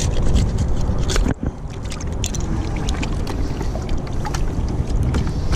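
Wind buffeting the microphone as a steady low rumble, with scattered sharp clicks and crunches of footsteps on loose shoreline rocks and gravel.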